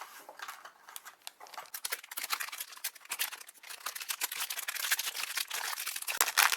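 A new plastic speedcube being unwrapped and handled: dense crinkling and clicking of its plastic wrapping and pieces, sparse at first and busier from about two seconds in.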